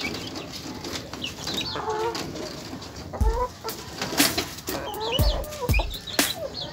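Chickens clucking: short, repeated bending calls from hens and a rooster, broken by a few dull thumps in the second half.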